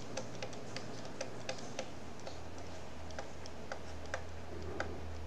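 Irregular light clicks and taps of a stylus on a tablet while writing by hand, with a low hum coming in about two and a half seconds in.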